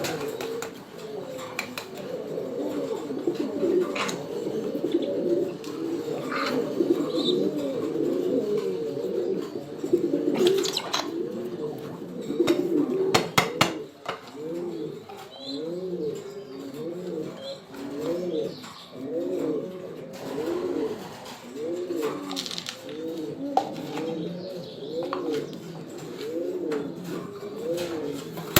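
Pigeons cooing: many overlapping coos, then a steady run of repeated coos in the second half, with a few sharp clicks around the middle.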